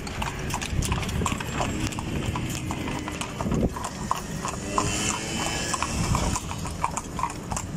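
Clip-clop of a pair of horses' hooves on an asphalt road as they pull a carriage, a quick, uneven patter of hoofbeats.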